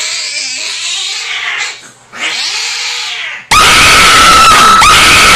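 Fractious domestic cat, restrained by the scruff, giving two long hissing yowls. About three and a half seconds in, a sudden, far louder shrill blast with a steady piercing tone cuts in over it: a jump-scare sound effect.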